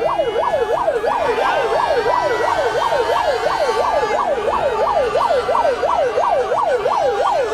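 Electronic siren in a fast yelp, its pitch sweeping up and down about three and a half times a second without a break.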